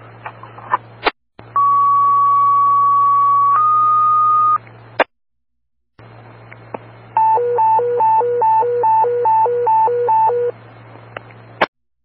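Fire dispatch alert tones received on a radio scanner. A steady tone holds for about two seconds, then steps slightly higher for about a second, like a two-tone pager activation. After a pause comes a hi-lo warble that alternates between two pitches about two and a half times a second for some three seconds. Radio hiss, a low hum and squelch clicks sit around the tones.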